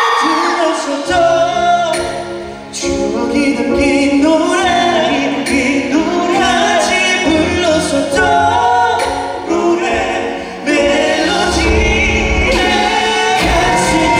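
Male vocal group singing live through handheld microphones, with music accompaniment underneath.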